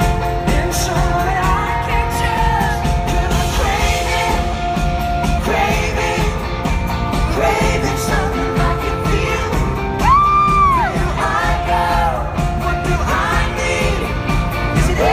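Live pop-rock band heard from the audience in a concert hall: a man singing lead over electric guitars and a drum kit, with a loud high note that rises and falls about ten seconds in.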